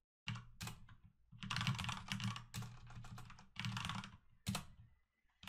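Typing on a computer keyboard: several quick bursts of keystrokes with short pauses between them.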